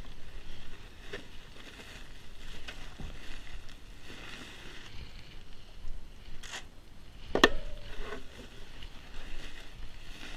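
Wind gusting over the microphone in uneven waves. Two sharp knocks come near the end, about six and a half and seven and a half seconds in, and the second is the loudest sound.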